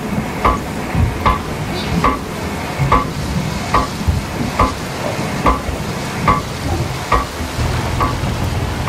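Manual deck windlass being worked by hand to haul in a heavy rope line, giving a sharp metallic clank with a short ring about once every 0.8 seconds, ten or so times, over steady heavy rain. A low steady hum comes in near the end.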